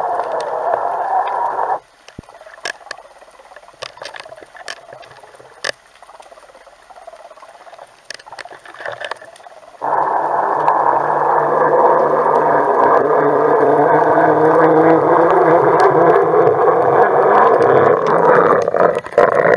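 Underwater noise picked up by a submerged camera: a loud rushing rumble that drops out about two seconds in, leaving faint scattered clicks and taps, then comes back loud about ten seconds in.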